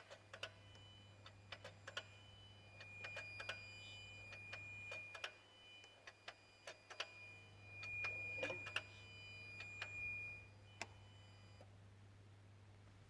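A Peugeot 207's electrics making a fault noise: irregular clicking mixed with short high electronic beeps and a couple of longer held beep tones, over a steady low hum. The clicks and beeps stop shortly before the end.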